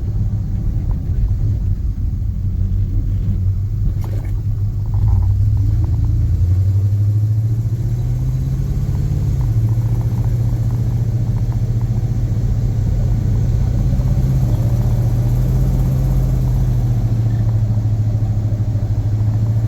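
1979 Dodge Power Wagon pickup running, heard from inside the cab. About five seconds in it grows louder and its engine note rises over a few seconds as the truck pulls away from a stop, then holds steady.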